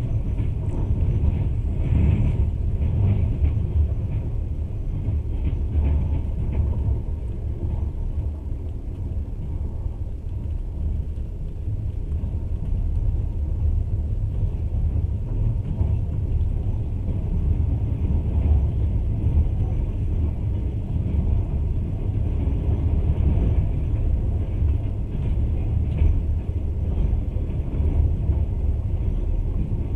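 Passenger train running at speed: a steady low rumble of the wheels on the rails, heard from inside the carriage.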